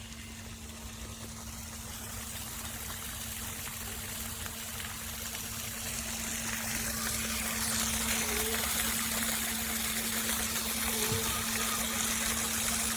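Acquaer 1/2 HP submersible sump pump running with a steady hum while water rushes and gushes from its discharge. The water noise grows steadily louder over the span.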